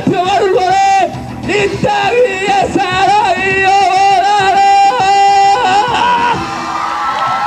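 Man singing long, wavering held notes and vocal ad-libs into a handheld microphone over a loud pop backing track, amplified through a PA.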